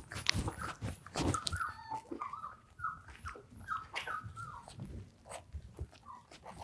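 Five-week-old German Shorthaired Pointer puppies whimpering and squeaking in many short, high cries that fall in pitch, with scattered sharp clicks between them.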